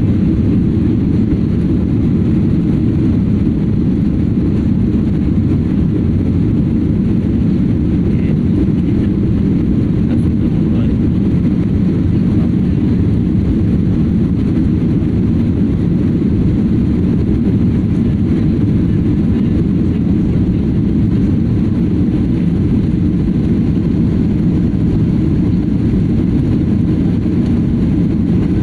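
Airplane noise: a steady low drone that holds unchanged throughout.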